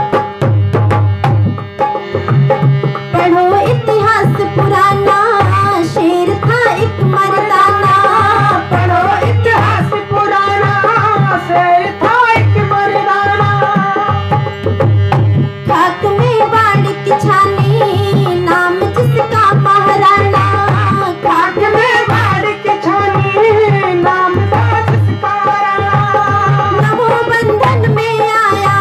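Bhajan accompaniment: a steady tabla rhythm under a wavering, ornamented melody line that comes in about three seconds in.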